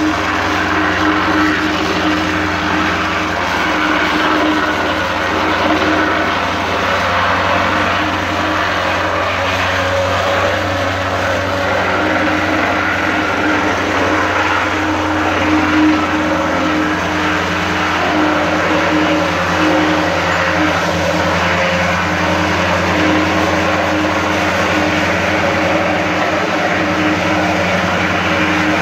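Small petrol-engine vibrating plate compactor running steadily as its plate works over newly laid interlocking concrete paving blocks, bedding them in.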